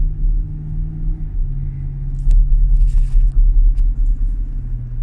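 Nissan car's cabin noise while driving: a steady low engine hum and road rumble. The engine hum drops in pitch about a second in, and the low rumble grows heavier in the middle, with a few faint clicks.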